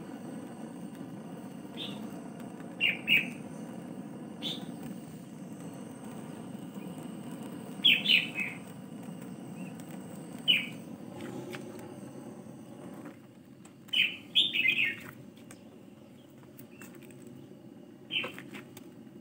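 Handheld butane torch burning with a steady low rush as it melts a piece of beeswax, easing off about two-thirds of the way through. Small birds chirp over it in short bursts, loudest in clusters, several times.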